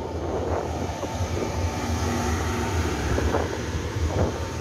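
Taiwan Railway EMU700-series electric multiple-unit train rolling slowly along the station platform: a steady low rumble with a faint thin whine, and wind buffeting the microphone.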